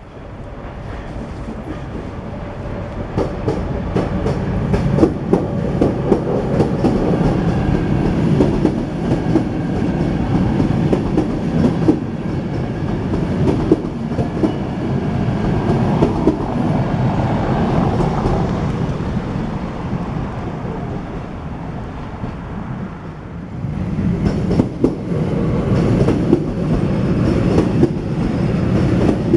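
A train passing over the level crossing: a loud rumble of wheels on rail with rapid clicking over the rail joints. It builds over the first few seconds, eases off around twenty seconds in and swells again a few seconds later.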